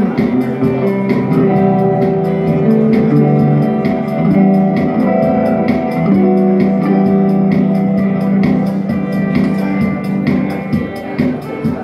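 Live band music: an electric guitar playing sustained chords and notes over a steady beat of drum or cymbal hits.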